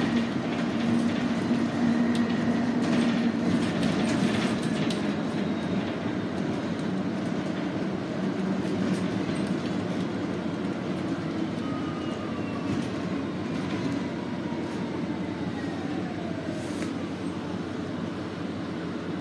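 Cabin noise of a 2019 Nova Bus LFS Hybrid city bus in motion: steady drivetrain and road noise, with a faint whine that falls in pitch over several seconds in the second half as the bus slows.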